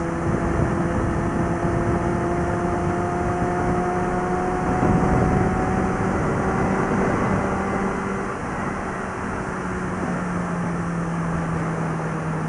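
Suzuki GSX650F motorcycle's inline-four engine and exhaust running at a steady highway cruise, under a constant rush of wind noise. About eight seconds in the engine note drops slightly and holds at the lower pitch.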